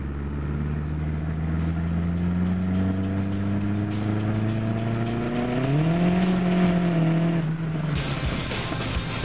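A car engine running with its pitch climbing slowly, then revving up quickly about six seconds in and holding before dropping away. A noisier rush follows near the end.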